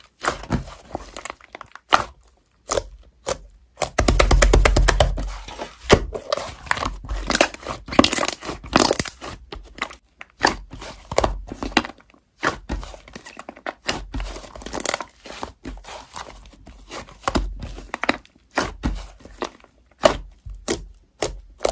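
Slime being pressed and stretched by hand: a run of crackling pops and clicks, densest about four to nine seconds in.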